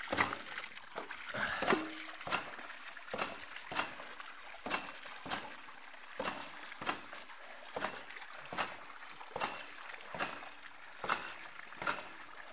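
Homemade hydraulic ram pumps running, their waste valves clacking shut in a steady beat of about one to two strokes a second, with water spurting and splashing from the valves between strokes.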